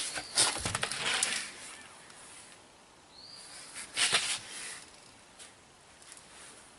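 Short hissing bursts with light handling clatter, about a second in and again about four seconds in, from a spray bottle squirting soapy water onto a tire to look for a leak.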